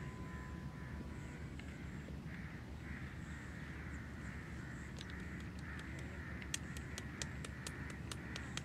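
Faint bird calls in the background over a low steady outdoor rumble, with a run of sharp light clicks starting about five seconds in.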